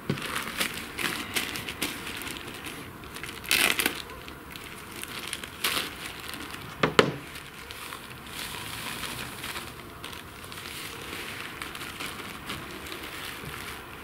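Plastic packet of salt crinkling as it is opened and squeezed, with salt pouring out into a bowl. Irregular crackles with a few sharper clicks.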